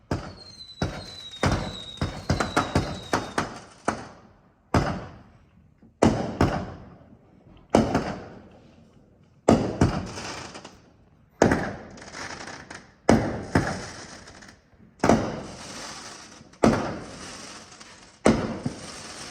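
Fireworks going off: a quick string of bangs with short whistles falling in pitch in the first few seconds, then single loud bangs about every second and a half, each trailing off, some with crackling after them.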